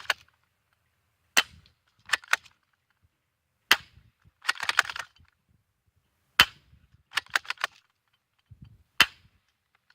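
Spring-powered BB pistol fired four times, each shot a sharp snap, about two and a half seconds apart. Between shots there are short runs of quick mechanical clicks and rattling from the gun being worked.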